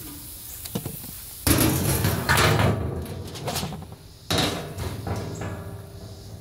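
Flat sheet-metal lid being dragged and set down over a cinder-block grill: a loud scraping metal clatter about a second and a half in, then a second clang a few seconds later that fades away.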